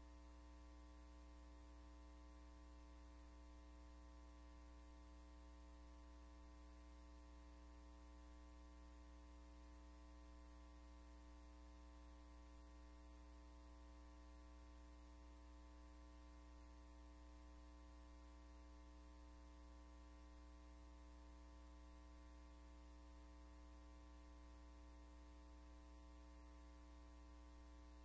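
Near silence with a steady electrical hum and its overtones.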